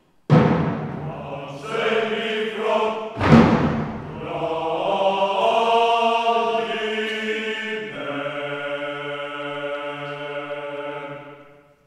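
Choir and symphony orchestra performing a chanted phrase: two loud struck chords with deep drum weight, one just after the start and another about three seconds in, then long held sung notes that change pitch about eight seconds in and fade out just before the end.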